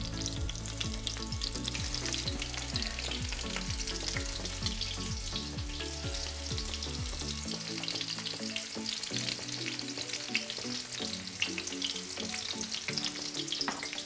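Coconut-and-panko-coated shrimp sizzling and crackling as they shallow-fry in avocado oil heated to about 350°F in a cast-iron skillet.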